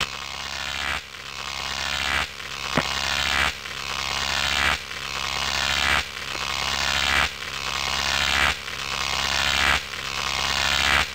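Looped intro sound effect: a hissing swell over a low hum that builds and then drops off sharply, repeating about every second and a quarter, with a single sharp click about three seconds in.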